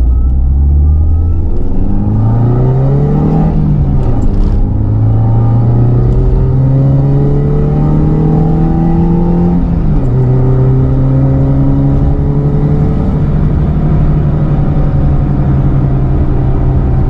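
Nissan Platina 1.6-litre four-cylinder engine with a Rush aftermarket exhaust, accelerating: the pitch climbs, drops sharply about 3.5 seconds in and again near ten seconds as it shifts up, then holds steady.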